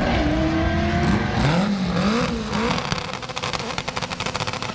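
Drag car's engine revving hard, rising in pitch and then wavering up and down, ending in a fast, even pulsing, about fifteen beats a second: the car has broken on the launch, with a broken axle suspected.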